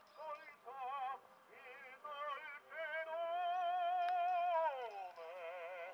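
A 78 rpm record playing on a 1919 Pathé Frères Model XXI wind-up acoustic phonograph: a melody with heavy vibrato, with a long held high note about three seconds in that slides down near the end.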